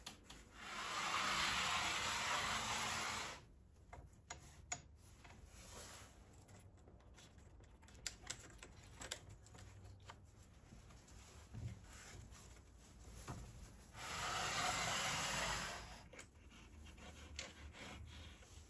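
A circular saw's base plate sliding along an aluminium guide rail, giving two steady scraping runs of about three seconds each, one near the start and one near the end. Between them come small clicks and knocks of the rail and saw being handled and adjusted.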